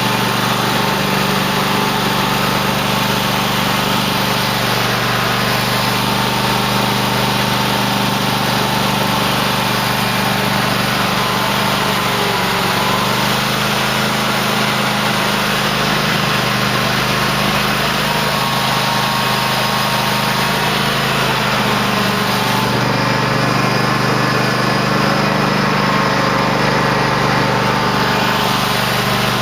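Cub Cadet LT1050 lawn tractor engine running steadily while plowing snow, its pitch shifting slightly a few times.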